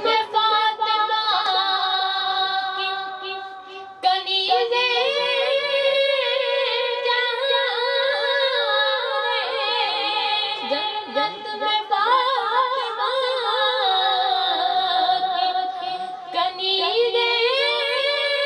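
A boy singing a naat, an Urdu devotional song in praise of the Prophet, into a microphone as a solo voice. The notes are long, held and ornamented, with two short breaks in the line.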